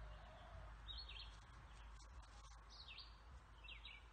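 Faint high bird chirps, each a quick falling note, about a second in and twice near the end, over a low steady background noise.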